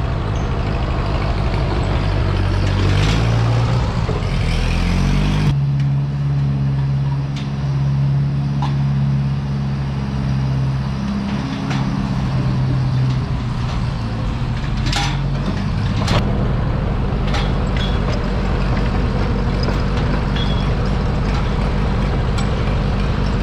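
Engine of a farm machine running steadily while pushing feed up to the cows along the feed alley. Its note rises for a few seconds near the start, with a few short knocks later on.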